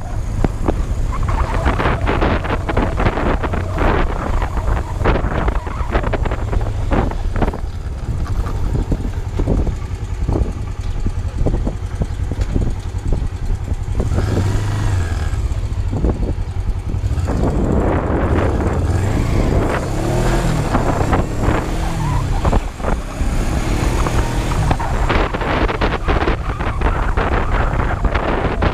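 Kawasaki GPz250 Belt Drive's parallel-twin engine running under way, heavily buffeted by wind on the microphone. About halfway through the engine note rises and falls as the bike pulls away and shifts.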